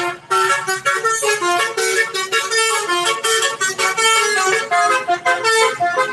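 Bus 'telolet basuri' multi-tone musical air horn playing a fast tune of short stepped notes.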